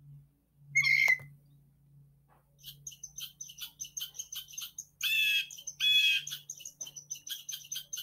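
Recorded blue jay calls played back: a single call about a second in, then from about two and a half seconds a fast run of short high notes, with two louder, longer harsh calls near five and six seconds. A low steady hum runs underneath.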